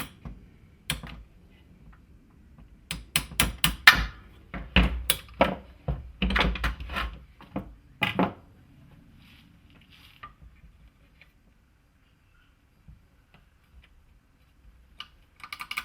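Metal parts of a pneumatic framing nailer clicking and clunking as they are handled and fitted together, a busy run of knocks that stops about halfway through, leaving only a few faint ticks.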